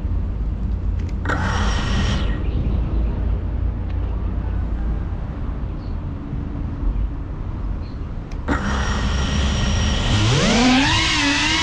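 FPV racing quadcopter resting on the ground with a low rumble of wind on its camera microphone and a short burst of noise about a second in. About eight and a half seconds in the propellers start to hiss, and about ten seconds in the motors' whine climbs steeply in pitch and holds high as the drone throttles up to take off.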